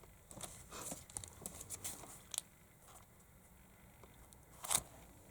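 Cellophane card sleeves crinkling as cards are handled, in scattered sharp crackles for the first couple of seconds, a lull, then a louder crackle near the end.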